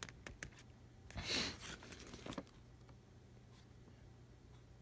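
A magazine page being turned by hand: light paper clicks, then one short rustling swish about a second in and a smaller one soon after.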